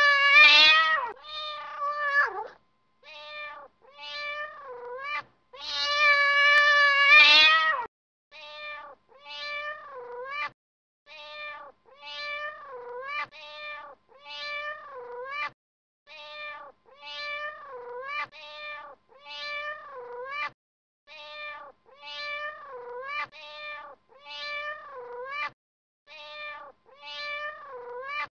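Domestic cat meowing over and over: a loud, drawn-out meow at the start and another about six seconds in, then a steady run of short meows about one a second.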